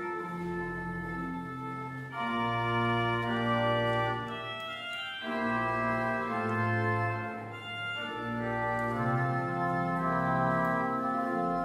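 Organ playing slow, sustained chords that change every second or so.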